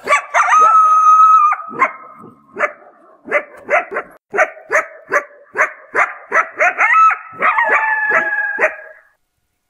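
Coyote howling and yipping: one long howl, then a run of short yips and barks, with held howls on two pitches again near the end.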